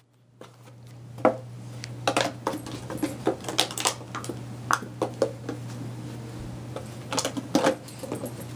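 A dog biting and mouthing a plastic water bottle: the plastic crackles and clicks irregularly, starting about a second in, over a steady low hum.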